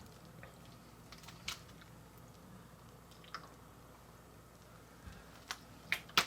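Hands squeezing and stretching Coca-Cola slime, giving scattered short wet clicks and pops that come more often and louder near the end, over the steady hum of a fan.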